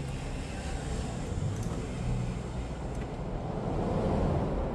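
Steady low background rumble with no distinct clicks or tool sounds.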